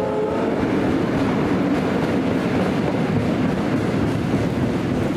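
Train running along the track: a steady, loud rumble of wheels on rail.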